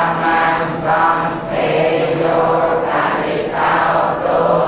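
A group of voices chanting together in a steady Cambodian Buddhist recitation, on a held low pitch, with short breaks between phrases.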